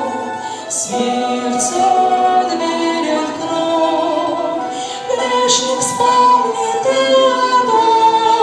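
A Christian worship song: a woman singing long held notes over musical accompaniment.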